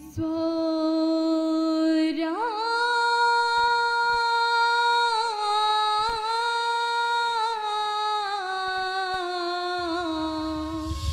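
A single voice singing one long, slow, drawn-out melodic line with little accompaniment, sliding up about two seconds in and then drifting gradually down in pitch. A low rumble joins in near the end.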